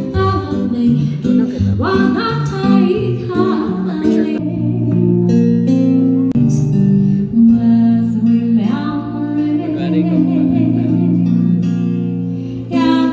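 Background music: a song with singing over guitar.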